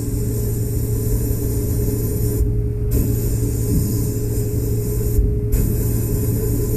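Media blasting in a blast cabinet: the hand-held blast gun hisses with air and grit as it strips old paint off a die-cast metal toy part. The gun cuts off briefly twice, over a steady low hum.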